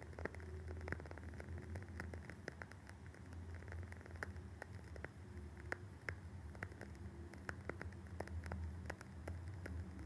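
Wooden-wick candle crackling: irregular small clicks and pops, several a second, over a faint steady low hum.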